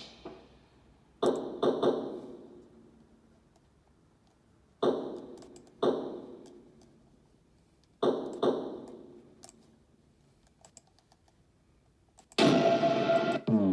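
Drums struck in single hits and short pairs a few seconds apart, each hit ringing out. Near the end comes a louder sustained sound that drops in pitch as it closes.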